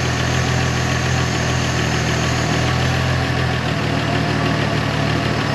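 Freshly rebuilt Chevrolet 250 inline-six engine idling steadily.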